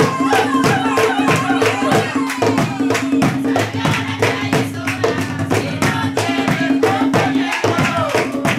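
Live Panamanian tamborito: hand drums beaten in a quick, steady rhythm, with hand clapping and voices singing over them.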